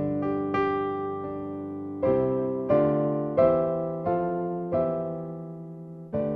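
Background piano music: slow, separate chords and notes, each struck and left to fade.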